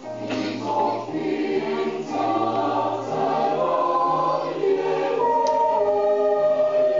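Small choir singing a Christmas carol in held, sustained notes, with a brief break between phrases right at the start.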